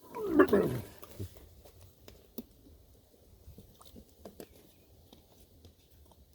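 A short voiced sound sliding steeply down in pitch about half a second in, then quiet chewing with small scattered clicks from someone eating.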